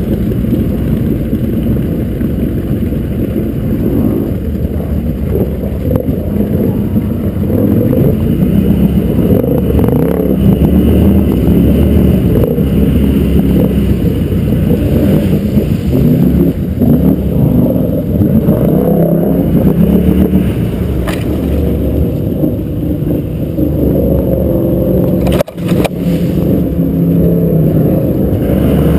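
Snorkelled ATV engine running under load through deep water, its speed rising and falling with the throttle. The sound briefly cuts out about twenty-five seconds in.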